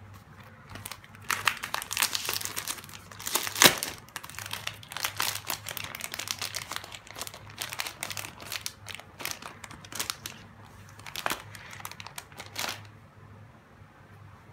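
Clear plastic packaging bag crinkling as hands handle it and pull the folded fabric leggings out, on and off, loudest about three and a half seconds in and dying away near the end.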